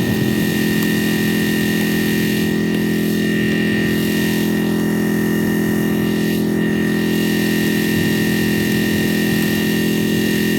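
Wolfe Ridge log splitter's engine running steadily at a constant speed, with a steady high-pitched whine over it.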